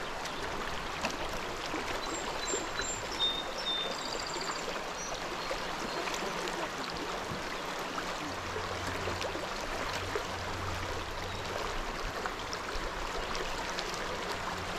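Steady rush of flowing river water, with a few faint high chirps a few seconds in.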